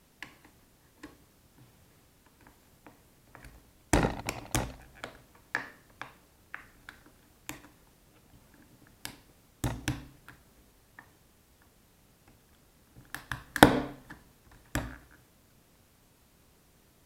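Scattered sharp clicks and knocks, like small hard objects being handled, bunching into three clusters about four, ten and fourteen seconds in.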